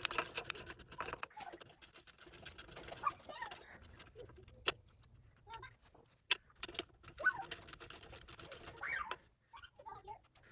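Hand tools clicking and clinking against the metal parts of an old tractor forklift's steering assembly while it is being taken apart: a quick run of clicks at first, then scattered single clinks.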